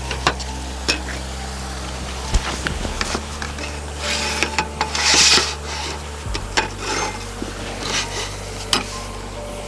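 Rubbing and scraping handling sounds with scattered knocks and clicks, loudest in a scraping burst about halfway through, over soft background music.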